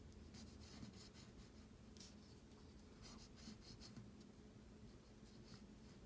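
Faint pencil strokes scratching on paper: several short runs of strokes with pauses between, over a faint steady low hum.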